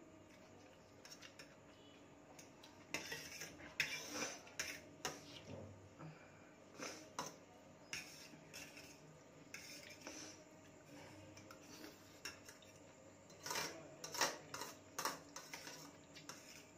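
Metal fork clinking and scraping against a stainless steel plate while gathering noodles: irregular clusters of sharp clicks, busiest a few seconds in and again near the end.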